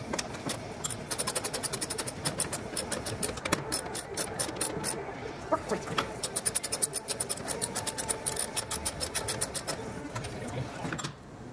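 Rapid, evenly spaced mechanical clicking in two long runs with a short break between them.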